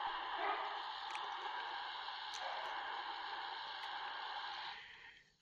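Xhdata D-808 portable radio tuned to 11,570 kHz shortwave, playing a steady static hiss with a few faint ticks. The hiss fades out near the end.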